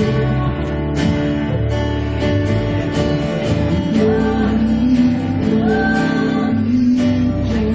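A live worship band playing a slow song: strummed acoustic guitar over sustained keyboard and bass chords, with a drum beat about once a second.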